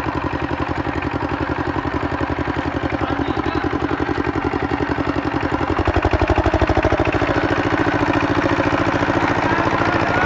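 Single-cylinder diesel engine of a two-wheel walking tractor (power tiller) running with a fast, even thudding beat as its lugged wheels work through wet mud. About six seconds in the beat gets louder and heavier.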